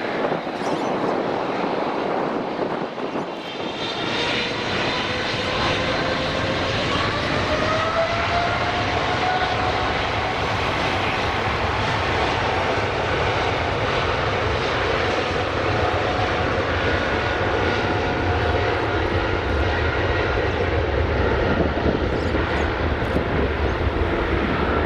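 Boeing 777-300ER's GE90 turbofans spooling up for takeoff: a whine rises in pitch for several seconds, then gives way to a steady jet roar whose deep rumble grows stronger toward the end. A different stretch of aircraft noise is cut off about three and a half seconds in.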